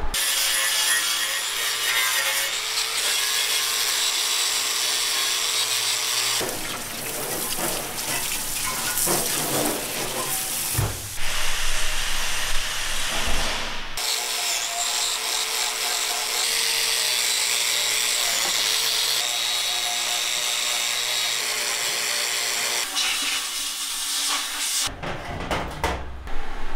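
Angle grinder with an abrasive disc running against the aluminium front cover of a BMW X6M engine, lightly grinding down its sealing face. The grinding goes on in long stretches, changes abruptly about 6 and 14 seconds in, and stops about two seconds before the end.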